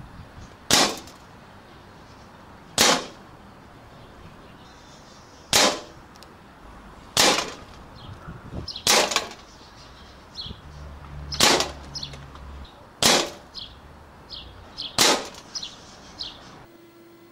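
Air rifle firing pellets, eight single shots in turn, each a short sharp crack, spaced about two seconds apart, with fainter ticks between the shots.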